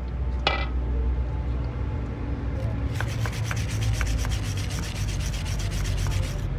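Hand scrub brush rubbing back and forth over the Honda CD 70 engine's detergent-wet cylinder fins. From about three seconds in it makes a fast run of scratchy strokes, over a steady low hum.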